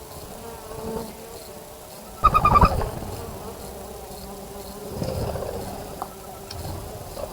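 A flying insect buzzing close to the microphone: a short loud buzz about two seconds in, with softer buzzing again later.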